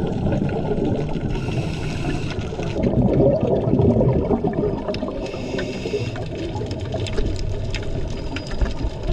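Underwater sound of a scuba diver breathing through a regulator: two hissing inhalations, each about a second long, with rumbling bubbles of exhalation between and after them, over a constant low underwater rush.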